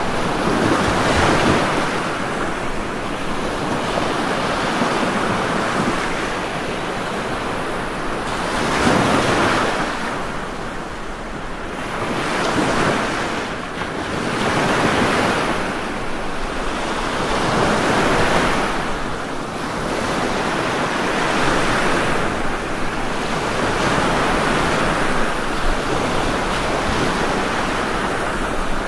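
Ocean surf: waves breaking and washing in as a continuous rush of water noise that swells with each wave every few seconds.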